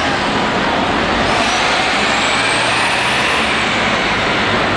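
City transit buses and other traffic moving past, with a steady loud rumble of engines and tyres. A faint high whine rises and then falls away in the middle.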